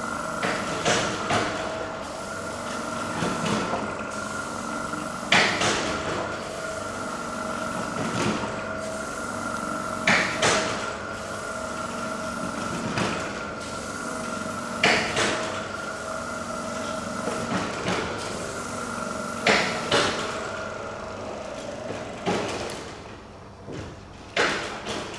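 Chains of a hanging swing seat clanking and creaking with a sharp scrape at a regular beat about every five seconds as the rig swings back and forth. A steady hum runs beneath and stops a few seconds before the end.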